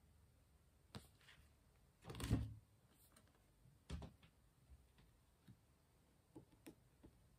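Tarot cards being handled on a table: a click about a second in, a short scuffing sound about two seconds in as a card is slid and set down, a tap about four seconds in, then a few faint clicks.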